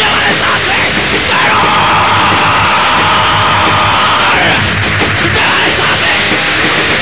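Hardcore punk song from a 1990s Czechoslovak cassette compilation, the full band playing loud and fast with a shouted vocal held for a few seconds in the middle.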